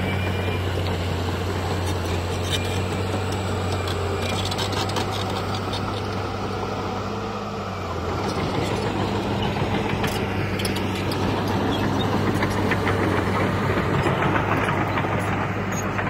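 Diesel engine of heavy earthmoving machinery running with a steady low hum. The sound changes about halfway through, turning rougher and a little louder towards the end as the engine works.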